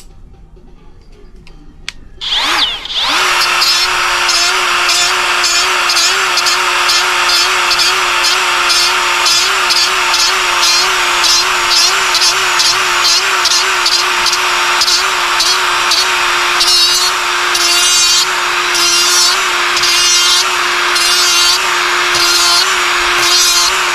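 Ryobi cordless angle grinder starting up about two and a half seconds in and running steadily at speed, a constant whine with repeated rasping pulses in the upper range, about one or two a second.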